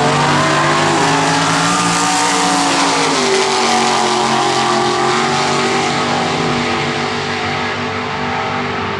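Two drag-racing cars running down the quarter-mile at full throttle. The engines rise in pitch and drop back at each gear change, then fade a little as the cars pull away.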